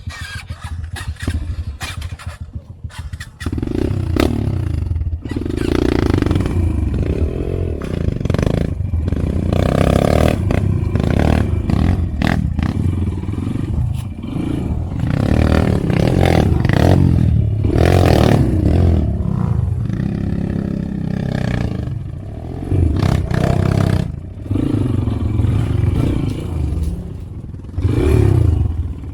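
Motorcycle engine running and revving up and down, with clattering and scraping. The first few seconds are quieter and full of clicks, then the engine gets loud about three and a half seconds in.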